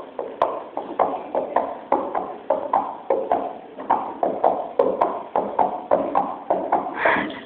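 Steady rhythmic percussive strikes, about three a second, each short and sharp.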